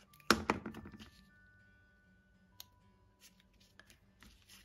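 Paper card being handled on a craft mat: a couple of sharp rustles and taps about a third of a second in, then soft scattered clicks and rustles. Faint held tones sound in the background.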